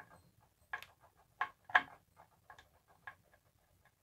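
Light, irregular metallic clicks and ticks as a screw is turned in a wooden board with a multi-bit hand screwdriver, the three loudest within the first two seconds and fainter ticks after.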